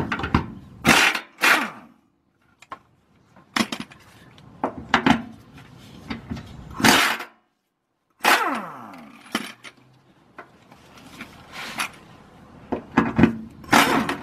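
Hand tools working the 12 mm nuts off an exhaust brace: a series of separate short metal scrapes and clanks from the socket ratchet and wrench. The sounds come in irregular single strokes, broken twice by short gaps of silence.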